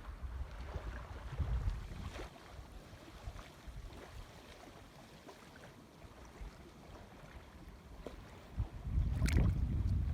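Gusts of wind rumbling on the microphone, uneven and strongest near the end, with one short sharp click about nine seconds in.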